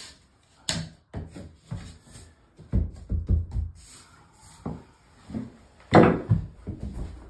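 Uni-click laminate floorboards being fitted: a sharp click followed by a run of wooden knocks and clacks as a board is set and pressed down into its click joint. A loud thump comes about six seconds in, as a plastic knocking block hits the board to seat the joint.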